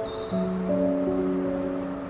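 Soft, slow background music for meditation: held notes that change every half second or so.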